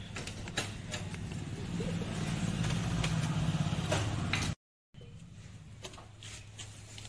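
A motor vehicle engine running with a steady hum, swelling louder for a couple of seconds before the sound breaks off abruptly about four and a half seconds in. Light metallic clicks of gearbox gears and rings being handled come through it.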